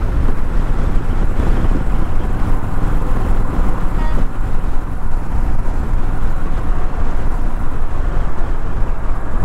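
Riding noise on the Honda Rebel 1100: wind rushing over the microphone, with the engine and tyres running underneath at a steady cruise of about 45 mph, easing off slightly.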